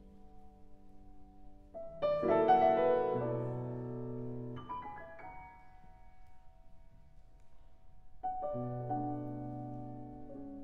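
Slow solo piano music: held chords ring and fade away. A loud chord is struck about two seconds in, with new chords near the middle and again past eight seconds.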